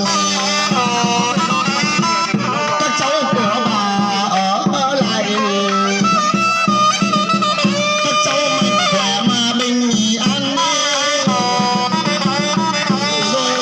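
Vietnamese funeral band (nhạc hiếu) playing traditional music: a sliding, ornamented melody over a steady low drone, with quick drumbeats.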